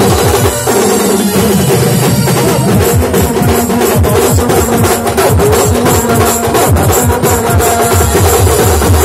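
Loud drum-heavy music played through a truck-mounted DJ loudspeaker system. The drum hits turn fast and dense from about three seconds in.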